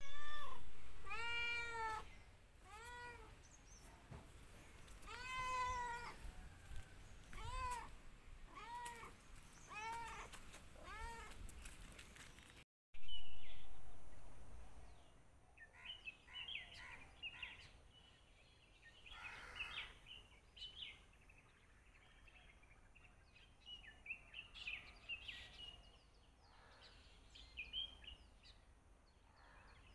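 A domestic cat meowing repeatedly, about one meow a second, each call rising and then falling in pitch. After an abrupt cut, scattered short high chirps take over.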